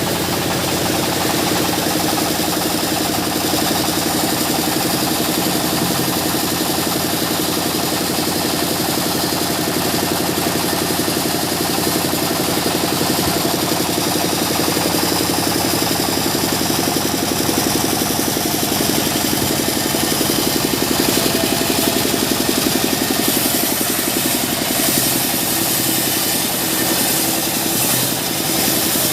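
Sawmill machinery running steadily: an engine-driven saw with a constant hum.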